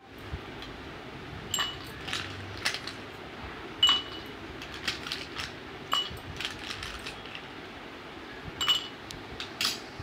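Ice cubes dropped one after another into glass tumblers: a series of sharp clinks at uneven intervals, several of them with a short ringing tone from the glass.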